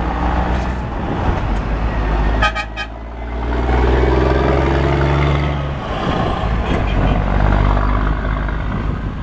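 Scania truck's diesel engine running with a deep, loud exhaust roar, swelling louder for about two seconds in the middle.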